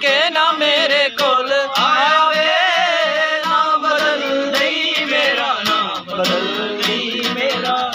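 A man singing a slow Punjabi song with long, wavering held notes, to an acoustic guitar.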